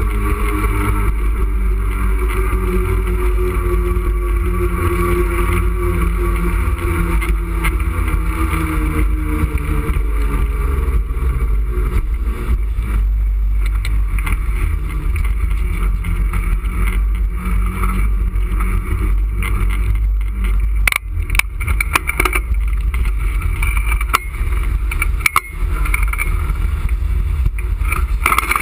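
Heavy wind rumble buffeting a moving action camera's microphone, with traffic running along the roadway beside it. A few sharp knocks come about twenty-one and twenty-five seconds in.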